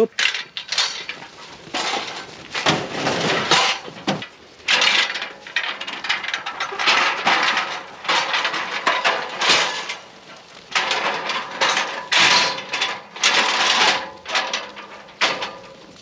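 A shepherd's repeated "shh" hissing calls, in short bursts every second or so, driving a flock of sheep into a pen, with light metallic clinking from the hurdle gates.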